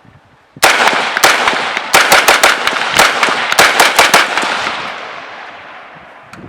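Helanbak HP15 AR-15 rifle in 5.56 fired in a rapid semi-automatic string of more than a dozen shots over about four seconds, starting about half a second in, with the echo dying away afterwards. The rifle cycles without a malfunction; the shooter says it runs pretty smooth.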